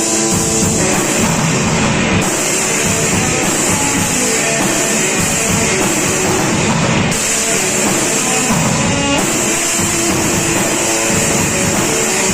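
Loud rock music with drums and guitar, running steadily.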